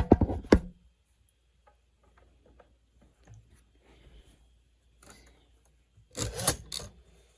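Knocks and scraping from a Hermes 3000 portable typewriter and its lid being handled. There is a quick clatter of knocks at the start, faint small clicks and rustles after it, and a louder scraping rub about six seconds in.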